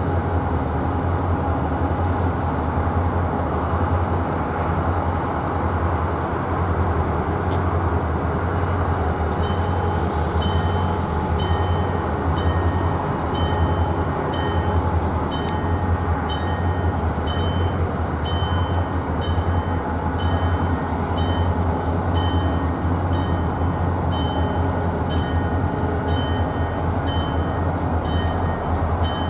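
Diesel locomotive of a passenger train running with a steady low hum as it creeps slowly toward the camera. From about ten seconds in, its bell rings about once a second.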